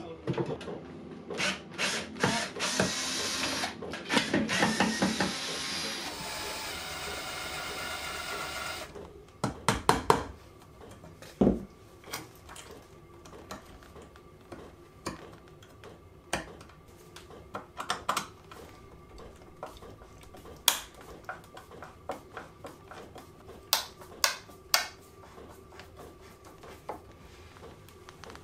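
Old nails being levered and pulled out of a wooden table frame, first with a claw bar and then with pincers: scraping and squeaking of metal working in wood, a run of sharp knocks about ten seconds in, then scattered clicks and taps.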